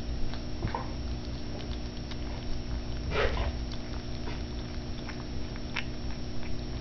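Kitten chewing raw beef cubes: irregular small wet clicks and smacks of biting and chewing, with one louder bite about three seconds in.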